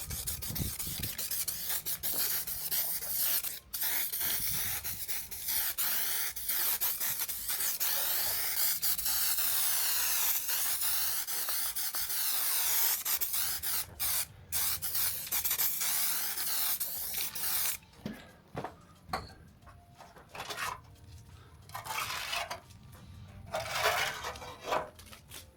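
Aerosol spray paint hissing in a long continuous pass, the hiss shifting in tone as the nozzle moves over the panel. It stops about 18 seconds in, followed by several short spurts near the end.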